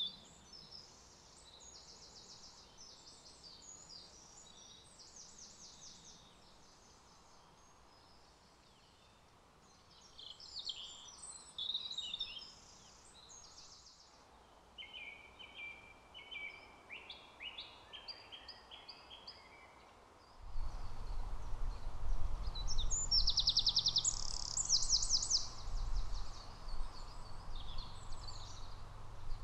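Songbirds singing in separate bursts of varied song. About two-thirds of the way in, a Eurasian wren takes over with loud, very fast trills over a low rumble.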